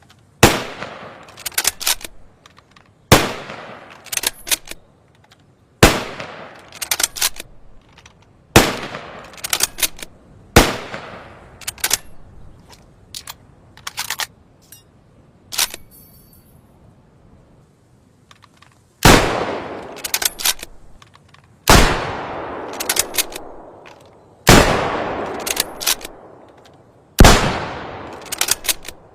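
Type 97 Arisaka bolt-action rifle firing about nine single shots, each followed by a quick run of metallic clicks as the bolt is worked. Partway through there is a pause of several seconds with only a few clicks, like reloading, before the shooting resumes. The later shots ring out with longer echoes.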